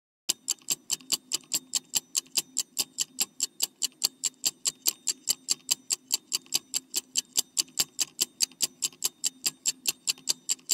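Clock-style ticking sound effect for a quiz countdown timer, about four to five even ticks a second over a faint low hum.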